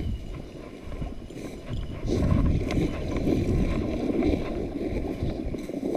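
Dry tall grass and brush swishing and rustling against a person's legs and clothing as they walk through it, growing louder about two seconds in.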